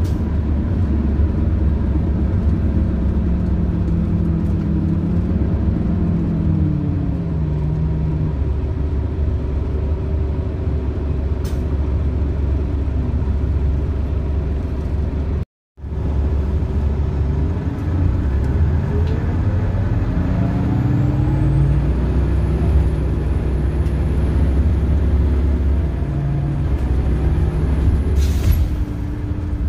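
Cabin sound of a 2001 Orion V diesel bus, its Detroit Diesel Series 50 EGR engine and Allison automatic transmission running: the drone falls in pitch as the bus slows about six to eight seconds in, then rises again as it accelerates after about eighteen seconds. The sound cuts out briefly midway, and there is a short hiss near the end.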